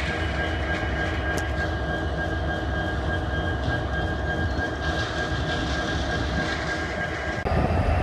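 EMD SD70M-2 diesel-electric locomotive's V16 two-stroke engine running as the locomotive moves slowly: a steady low rumble with a thin steady tone above it. Near the end the tone stops and the rumble gets louder.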